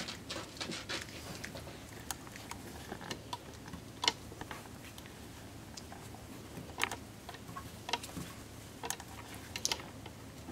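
Light, scattered clicks and taps at irregular intervals, the sharpest about four seconds in and a cluster near the end.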